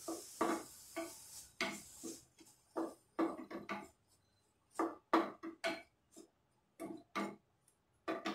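Wooden spatula knocking and scraping against a non-stick kadhai while stirring grated carrot roasting in ghee. The knocks are short and irregular, coming singly or in small clusters.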